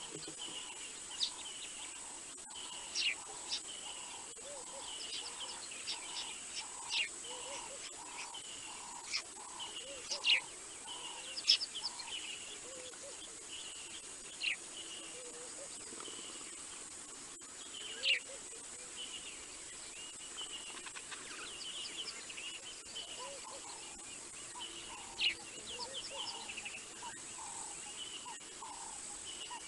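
Wild birds calling in the bush, with sharp, quickly falling whistled notes and chirps scattered through, over a repeated lower note about twice a second and a faint steady high-pitched tone.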